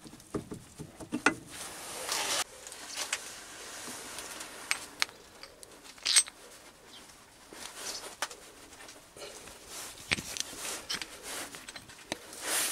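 Steel workpieces being handled and fitted together: scattered metal clicks, clinks and rubbing as a turned tool-steel spigot and a steel rod are worked into the bore of a steel tool-post base plate, with a sharp clink about six seconds in.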